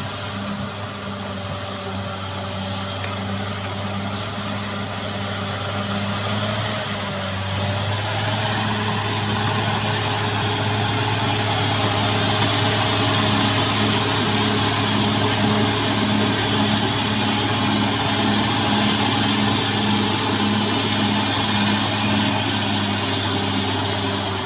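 CAT D6R XL bulldozer's diesel engine running steadily under load, with a regular pulsing beat beneath it. It gets louder about eight seconds in, and a thin high whine joins it from then on.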